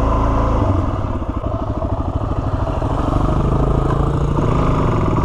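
Single-cylinder dual-sport motorcycle engine running at low speed on a trail, its beat going uneven for a couple of seconds before settling to a steadier putter.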